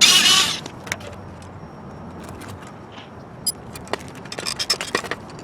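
A brief loud scrape or rustle, then scattered sharp metallic clicks and rattles of tools and parts being handled, with a quick run of clicks near the end.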